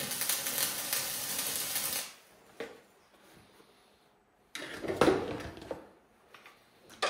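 Electric arc welding: a steady crackling sizzle of the arc for about two seconds, then it stops. About five seconds in comes a short clatter of metal being handled on the workbench, and a sharp knock near the end.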